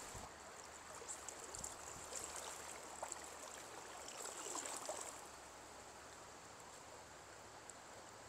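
River current running steadily, with light irregular splashing of water in the first five seconds.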